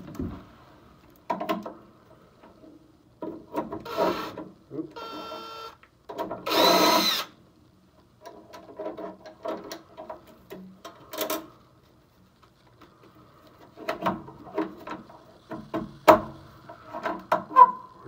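Makita 18V cordless drill-driver running screws in to refit the pressure switch: a short, quieter run about five seconds in, then a louder whine of about a second that rises and falls in pitch. Scattered clicks and knocks of metal and plastic parts being handled come between the runs.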